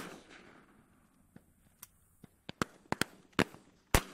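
Shotguns firing at doves across a crowded hunting field. One loud report comes at the start and trails off, then about ten more shots, some faint and some loud, crack off in quick, uneven succession, with another loud one near the end.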